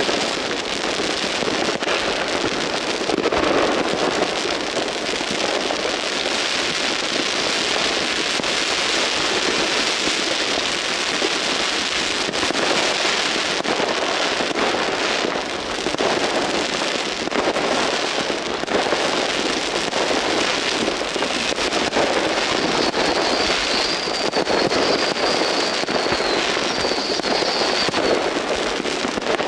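Many fireworks and firecrackers going off at once in a dense, continuous crackle of bangs, with a high whistle near the end.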